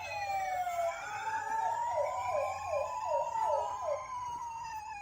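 Several toy ambulance sirens sounding at once, electronic tones sliding slowly up and down over each other. About two to four seconds in, one of them adds a fast run of short falling sweeps, two or three a second.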